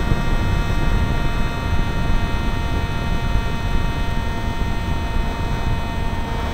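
A Zagi v4 RC flying wing's motor and propeller, heard from its onboard camera, run at a steady whine made of several high tones. Under it, wind buffets the microphone in flight with a low rumble.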